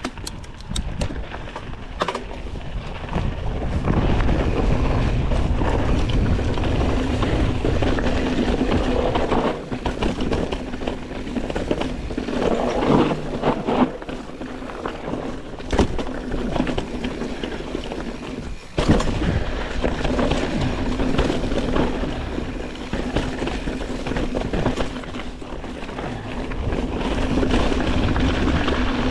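A mountain bike descending a rough dirt singletrack: tyres rolling over dirt and loose stones, with the bike rattling over bumps, wind on the microphone and a steady low buzz underneath. Sharp knocks come a few times, about 2, 10, 16 and 19 seconds in, as the bike hits bumps.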